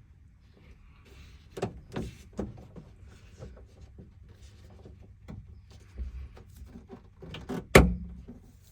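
Scattered knocks and clicks of a new rubber window belt moulding strip being pressed and clipped onto a van door's window ledge. A run of three knocks comes a little after a second in, and one sharp, loudest knock comes near the end.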